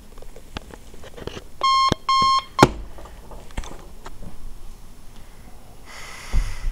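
Digital alarm clock beeping: two short, loud, high beeps, followed at once by a sharp knock. Soft clicks and rustling follow.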